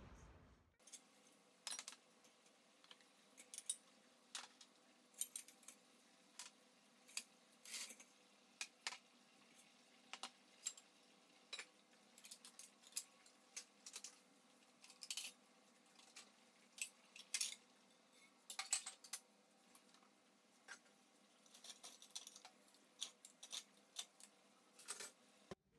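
Faint, irregular clinks and taps of plates and cutlery against a stainless-steel dish rack as it is being emptied.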